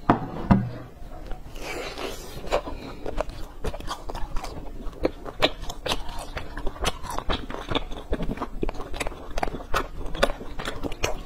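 Close-miked eating of crisp, syrup-glazed fried flat cakes: crunchy bites, crackles and wet chewing, the crust tearing between bites. A single louder thump comes about half a second in.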